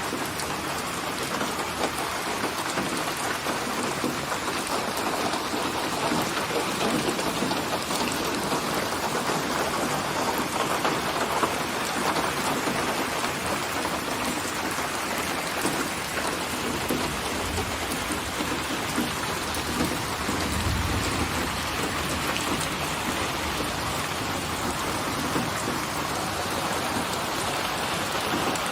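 Steady rain, with a low rumble of thunder swelling about two-thirds of the way through.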